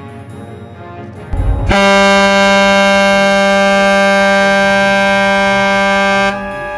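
The ship's whistle of the ferry Hayabusa III sounds one long, steady blast of about five seconds, starting about a second and a half in and then cutting off. It is the ship's departure signal as it leaves its berth.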